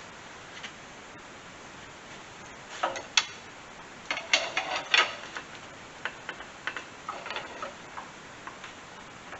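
Irregular sharp taps and clicks of hand work fitting a hydraulic lift cylinder back into its mount on a skid steer, with a cluster of louder knocks about three to five seconds in and lighter ticks after.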